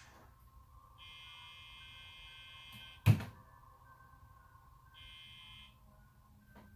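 Electronic beeping: one long beep of about two seconds, then a shorter one about two seconds later. A sharp, loud knock sounds just after the first beep ends.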